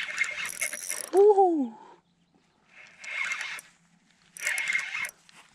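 Fishing reel buzzing in three short bursts as a hooked bass is played on the line, with a short excited 'woohoo' shout about a second in.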